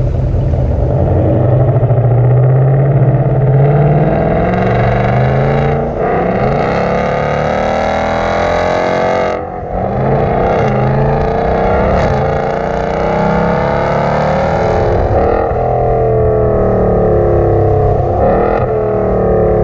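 Ford Mustang GT 5.0-litre V8 accelerating hard, its engine note climbing and breaking off at gear changes several times.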